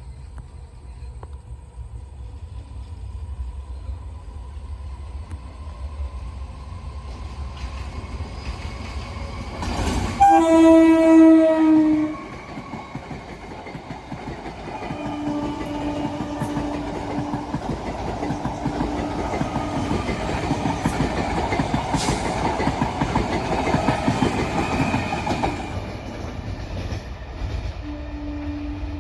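Indian Railways WAP-7 electric locomotive on the Teesta Torsa Express: a low rumble as it approaches, then one loud horn blast lasting about two seconds, ten seconds in. The clatter of the coaches rolling past follows, with a fainter tone on and off, and dies down near the end.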